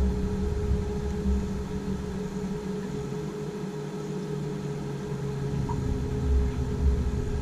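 Boat motor running steadily at slow trolling speed, a constant hum with a rumble that rises and falls.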